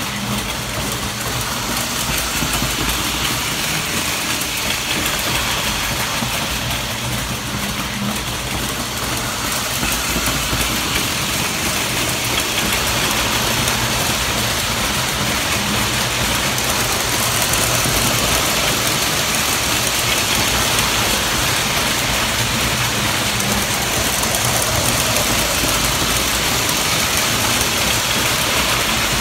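Lionel electric model trains running on the track: a steady whir and rumble of motors and wheels on the rails, a little louder from about ten seconds in.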